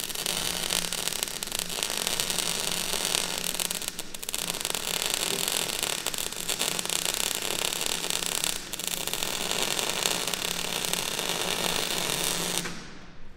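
Electric arc welding on the steel hull of a Churchill Mk IV tank: the arc crackles and sizzles steadily over a faint hum. It breaks briefly twice and cuts off near the end.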